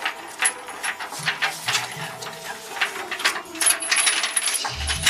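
Metal chain and padlock on a metal door rattling and clinking as someone works at the lock: a run of sharp metallic clicks and jangles. Low background music comes in near the end.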